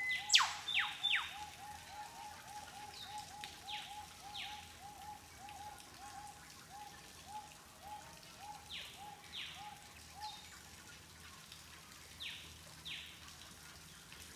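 Birds calling: one bird repeats a series of short notes, about four a second, that slows and fades, while another gives sharp whistles that sweep steeply downward, mostly in pairs, the loudest near the start.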